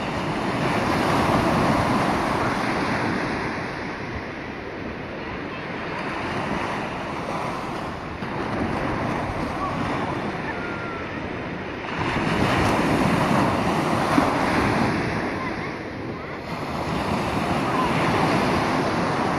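Ocean surf breaking and washing in over shallow water, in swells that rise and ease every few seconds.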